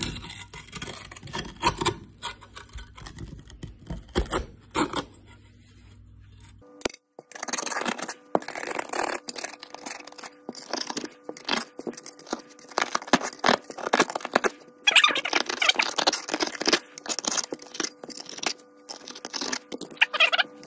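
Flat-tip screwdriver scraping and chipping crumbly rust off a heavily corroded old trowel: rapid, irregular scrapes and clicks of metal on metal.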